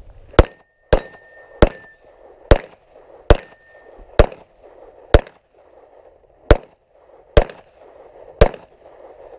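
Semi-automatic pistol fired ten times at a steady pace, about one shot a second, each sharp crack followed by a short echo off the range.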